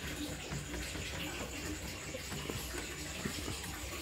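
Elna portable embroidery machine running: a steady low motor hum with faint, uneven mechanical ticks.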